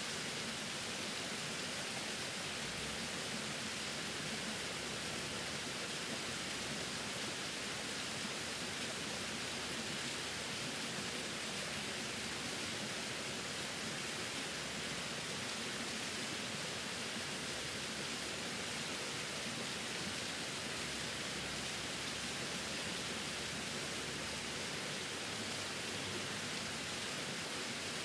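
Small waterfall splashing down a rock face: a steady, even rush of falling water.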